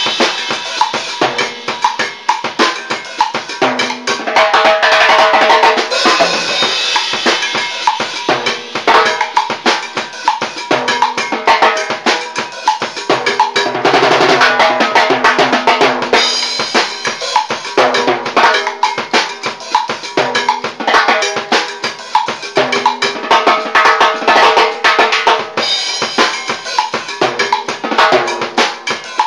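Timbales and drum kit played together in a timba groove: a busy cowbell pattern over timbale shells, rimshots, snare and bass drum, with cymbals ringing out several times.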